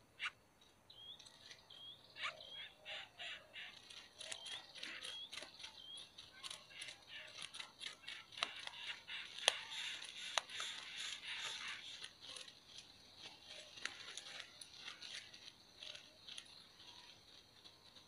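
Greater coucal nestlings giving fast, thin, high-pitched begging chirps in the nest, many a second, mixed with sharp clicks and rustling. The calls start about a second in, are busiest in the middle and fade out near the end.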